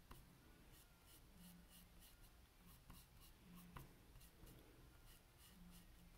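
Faint scratching of a paintbrush stroked back and forth across a small canvas, a quick run of short strokes about two or three a second, over near-silent room tone.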